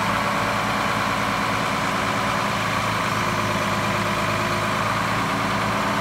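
Boat straddle carrier's engine running steadily, stepping up slightly in loudness at the start and then holding, as the machine's forward and reverse drive is tested.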